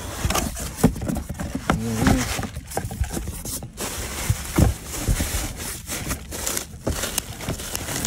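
Irregular knocks, clicks and scrapes of parts and tools being handled.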